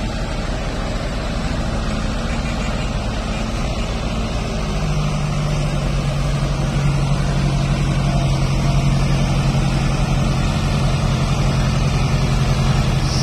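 Tumosan 8195 tractor's diesel engine running under load as it pulls a rear-mounted implement through loose soil. About five seconds in, a steady low note comes in and holds, and the engine grows a little louder.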